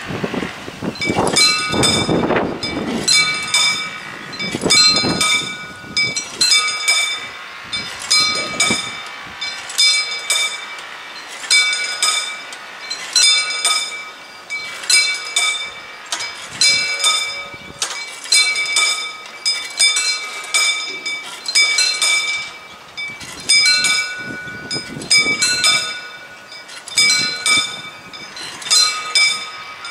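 Mechanical bells on the barrier drives of a historic crank-operated railroad crossing, ringing in bursts of rapid strokes about once a second. The ringing is the warning that the barriers are being lowered.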